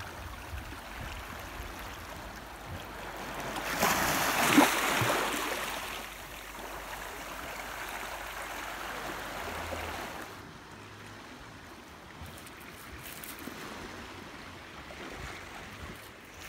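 Small sea waves washing onto a pebble and rock shore, with one wave swelling louder about four seconds in before the wash settles back to a softer lapping.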